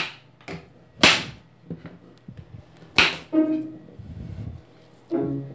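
Kitchen knife chopping baby carrots on a glass stovetop: three sharp chops, one at the start, one about a second in and one about three seconds in, each a hard knock of the blade through the carrot onto the glass.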